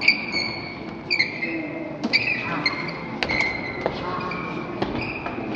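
A basketball bouncing on a hardwood gym floor, about one knock a second, with short high sneaker squeaks over a low crowd murmur.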